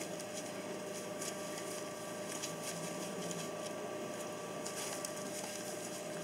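Newspaper crinkling and rustling in short, scattered crackles under two puppies' paws as they scuffle, over a steady background hum.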